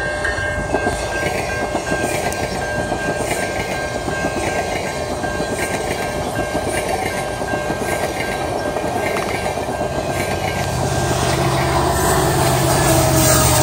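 GO Transit bilevel commuter train passing at speed, its wheels clattering over the rails, with a steady ringing tone from the level-crossing signal that fades out past the middle. Near the end the diesel locomotive pushing at the rear goes by, adding a louder, deeper engine drone that drops in pitch as it passes.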